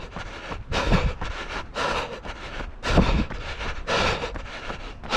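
A runner's footfalls on a trail with heavy breathing, a strong stride-and-breath beat about once a second.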